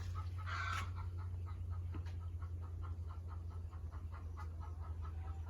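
Chickens clucking softly, with one slightly louder call about half a second in, over a low steady rumble.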